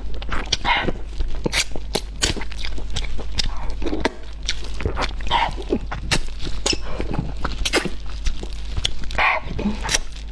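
Close-miked eating sounds: wet chewing, lip smacks and sucking as meat is gnawed off a roasted rib bone, a quick run of short smacky clicks. A steady low hum sits underneath.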